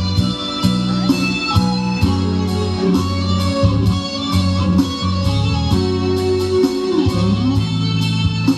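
Band music with no voice: guitar and keyboard over a steady beat of about three strikes a second.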